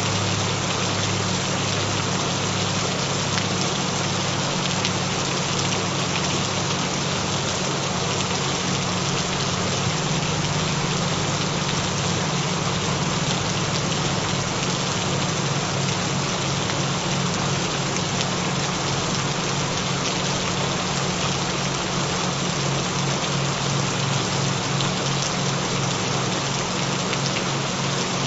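Gentle steady rainfall, with low humming frequency tones under it that pulse in a fast even flutter and shift in pitch a couple of times.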